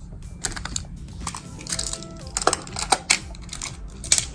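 Plastic magnetic building tiles clicking and clacking together as pieces are moved and set in place: a string of irregular sharp clicks.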